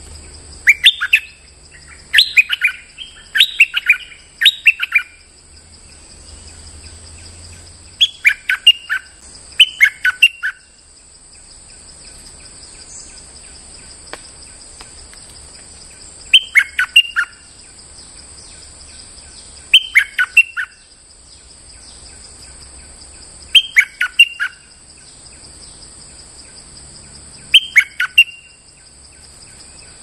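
Stripe-throated bulbul singing short phrases of quick, bubbling notes. Several come close together in the first few seconds, then one phrase every three to four seconds.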